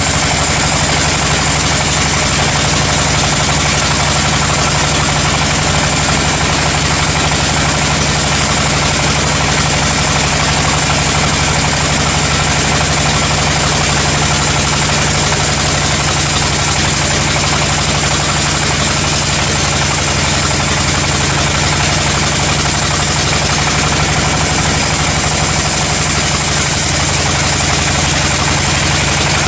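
Sawmill machinery running steadily: an even engine drone with a constant high hiss over it.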